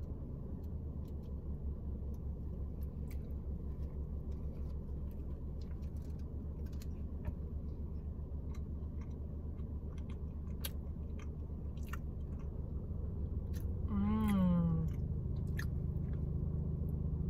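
Close-miked chewing of pita bread dipped in hummus: soft wet mouth clicks and smacks over a steady low hum. About fourteen seconds in, a short hummed "mmm" that rises and then falls.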